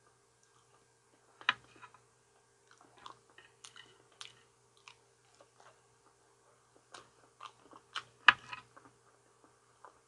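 A person chewing and biting ripe banana close to the microphone: irregular soft wet mouth and lip smacks, with the sharpest ones about one and a half seconds in and near the end.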